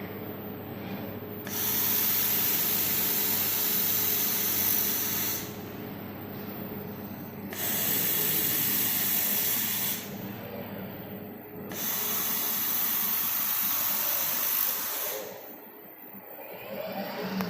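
Robotic welder making three welding passes, each a loud steady hiss lasting about three seconds that starts and stops sharply. Between the passes a quieter machine hum with steady low tones is heard.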